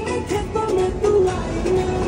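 Background music with a melody of held notes that change pitch step by step.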